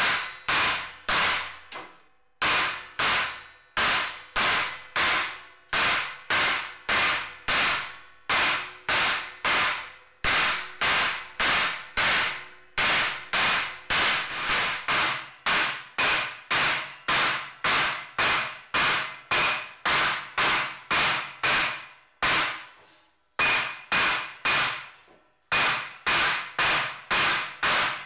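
Wooden mallet beating a sheet-metal gas-tank panel against a steel welding table: a steady run of sharp, ringing metallic blows, about two to three a second, shaping the panel's curve. The blows pause briefly about two seconds in and again some five seconds before the end.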